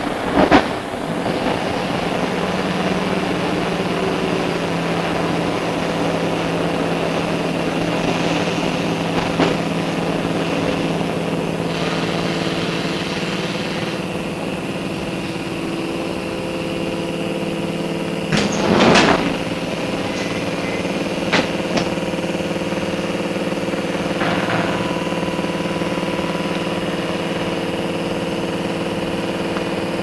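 Inside a Sydney R set double-deck electric train car: a steady, even hum of onboard electrical equipment, with a sharp knock about a second in, a louder clunk about two-thirds through, and a few lighter knocks after it.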